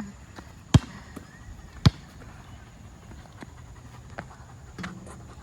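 A basketball bouncing on a hard outdoor court: two loud bounces about a second apart, then a few fainter taps.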